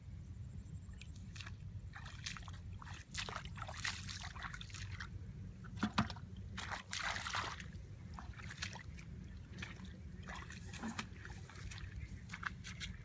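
Water splashing and sloshing in irregular bursts, with a sharper splash about six seconds in, over a steady low rumble.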